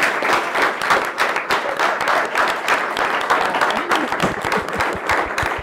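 Audience applauding, many hands clapping steadily. Voices start to come through near the end.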